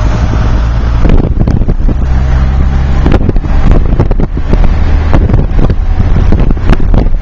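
Car engine and road noise heard from inside a moving car: a steady low hum with wind buffeting the microphone and frequent short crackles.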